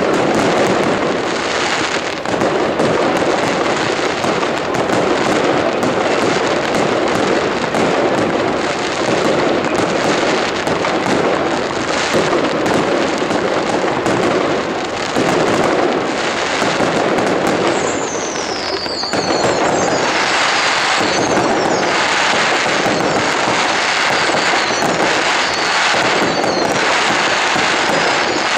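Professional fireworks display: a continuous, dense barrage of aerial shell bursts and crackling stars, with a falling whistle about two-thirds of the way through.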